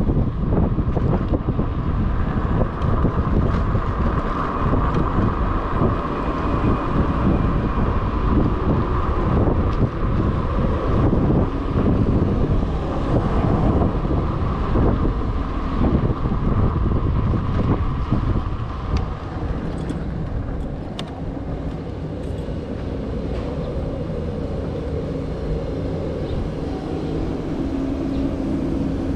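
Wind buffeting the microphone and tyre rumble from a small scooter riding over rough pavement, with a steady whine from its motor. Both ease off about twenty seconds in as the scooter slows.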